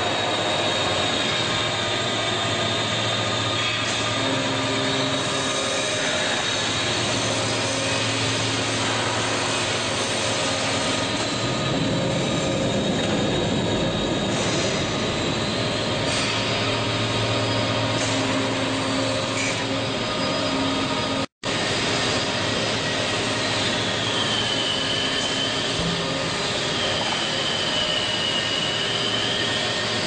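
Hydraulic pump and electric motor of a 400-ton Williams & White bulldozer press running steadily: a loud hum with several steady tones, and a high whine that dips and rises twice near the end. The sound cuts out for an instant about two-thirds of the way through.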